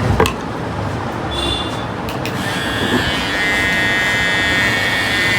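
Electric hair clippers switched on about two and a half seconds in and buzzing steadily, after a few light clicks.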